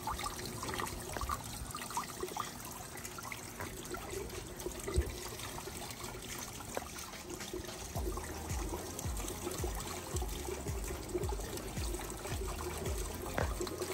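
Water trickling and splashing down inside PVC hydroponic grow towers, circulated by a submersible pump, with small drips. A low rumble joins about eight seconds in.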